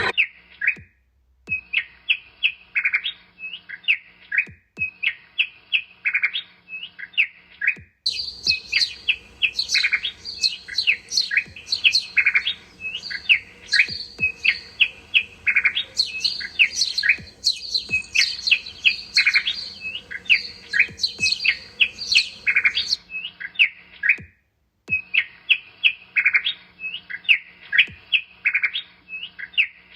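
Small birds chirping in quick repeated short calls. A second, higher-pitched bird joins about eight seconds in and drops out shortly before a brief break near the end.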